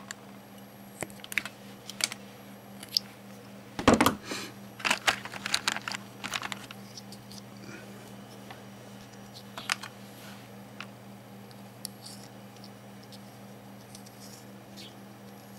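Small hand tools clicking and snipping as thin wires are cut and handled, in scattered sharp clicks with a busier run about four to seven seconds in. A faint steady low hum runs underneath.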